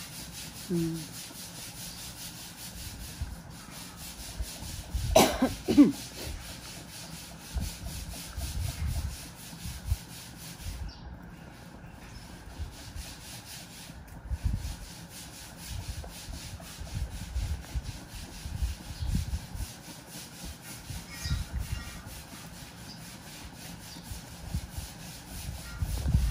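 Rubbing and dull low knocks of handling as a monkey picks at banana-leaf-wrapped cake on a plate held over a wooden table, with a short squeaky sound about five seconds in.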